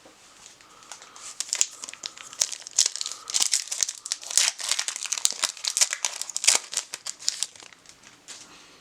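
A plastic trading-card pack wrapper being torn open and crinkled by hand: a dense run of crackles and tears starting about a second in and dying away near the end.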